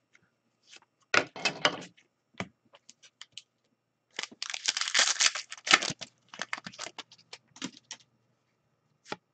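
Trading card packs and cards handled on a table: a cluster of clicks and rustles about a second in, then a denser burst of crinkling and rustling from about four to six seconds in, followed by scattered light ticks.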